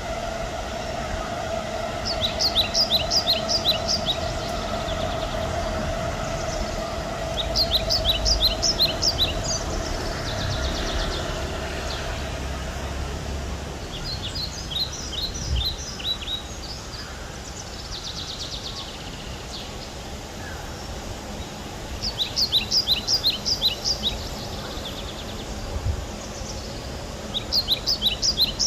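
Small songbird singing repeated phrases of rapid high chirping notes, about two seconds each, five times, over a steady background hum that fades out about halfway through.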